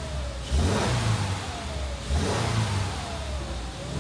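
Subaru Forester 2.5-litre flat-four engine blipped twice from idle in Park, heard from inside the cabin; each rev jumps up suddenly and falls back to idle over about a second and a half.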